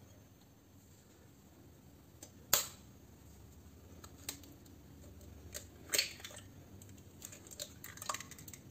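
Eggs cracked open over a stainless steel bowl: a sharp tap about two and a half seconds in and another near six seconds, then a run of small crackles as the shells are pulled apart.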